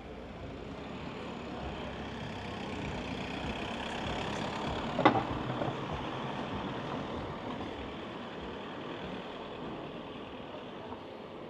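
A motor vehicle passing close by: engine and tyre noise that swells to a peak about halfway through, then fades. A single sharp knock sounds at the loudest moment.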